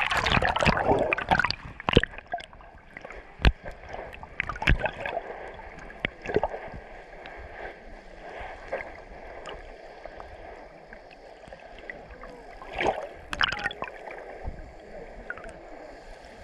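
Water sloshing and gurgling around an underwater camera, loudest in the first second or so as it rides at the surface, then muffled underwater noise with scattered sharp clicks and knocks and another brief sloshing burst near the end.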